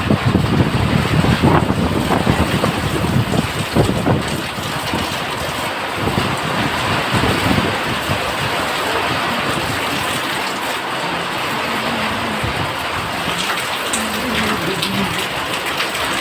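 Heavy rain falling steadily as a dense hiss, with a heavier low rumble and a few knocks in the first few seconds.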